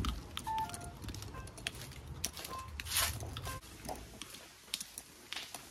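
Footsteps and scattered clicks from the handheld phone while walking, with a low wind rumble on the microphone that drops away about three and a half seconds in as the walk moves indoors.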